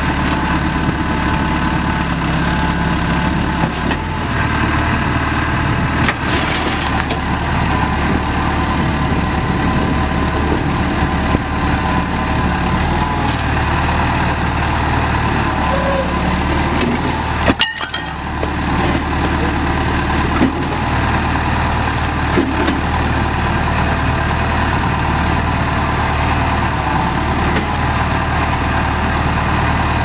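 2001 John Deere 410G backhoe's 4.5-litre four-cylinder diesel engine running at a steady speed. The sound drops out briefly a little past the middle.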